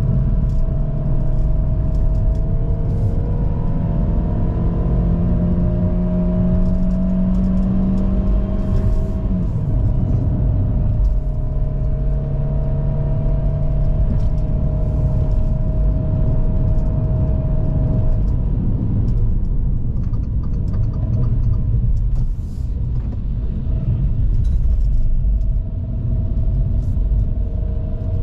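The 1.5-litre naturally aspirated petrol engine of a GAC GS3 pulling under load uphill, its pitch rising steadily. About nine seconds in the pitch drops suddenly as the automatic gearbox shifts up, then it climbs again. From around eighteen seconds it settles to a lower, steadier note.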